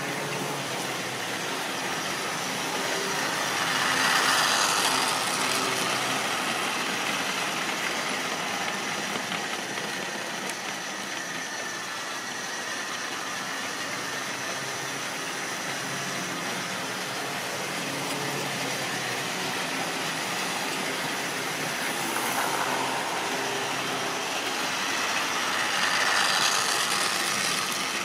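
Model railway trains running on the layout: a steady whirr of small electric motors and wheels on the rails, swelling as a train passes close about four seconds in and again near the end, when a tank engine hauling open wagons goes by.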